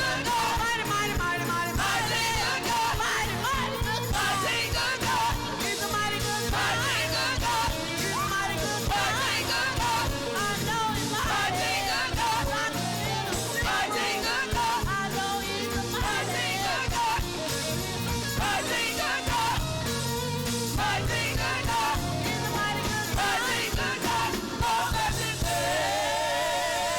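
Live gospel music from a church band, with drums, bass and keyboard under singing voices.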